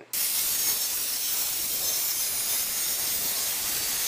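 Circular saw ripping a trim strip off a sheet of plywood along a clamped straight-edge guide: a steady, high, rushing noise that starts abruptly and holds at an even level.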